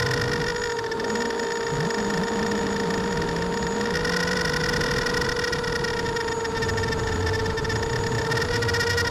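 ImmersionRC Vortex FPV quadcopter's brushless motors and 5x3 propellers whining at a steady cruising throttle, recorded by the onboard camera, with an even rush of noise underneath.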